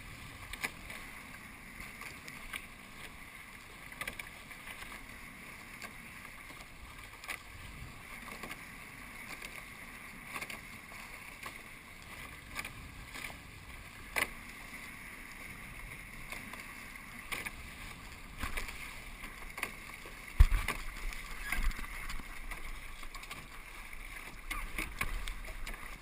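Catamaran hulls rushing through choppy water, with frequent short knocks and splashes as the boat meets the waves. About twenty seconds in comes one loud hard knock, and after it the sound is louder, with more low rumble.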